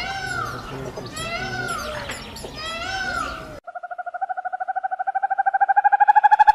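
Animal calls: loud arching calls repeated about every second and a half over a busy chorus of chirps. After an abrupt cut, a fast pulsing trill of about ten pulses a second slowly rises in pitch and grows louder.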